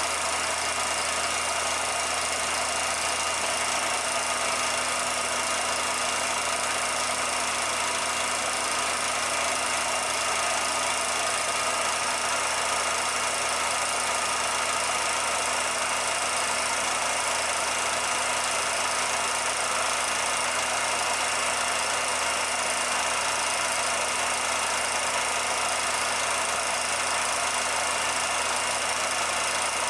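16mm film projector running: a steady, unchanging mechanical hum with hiss. The film itself is silent, so the steam locomotive on screen is not heard.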